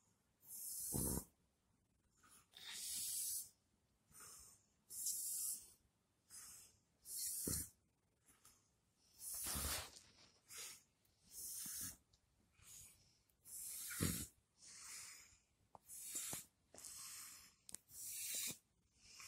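Shiba Inu breathing hard and noisily while lying down, one rasping breath or snort roughly every second, some with a low snort under the hiss. The strained breathing is that of a dog close to death.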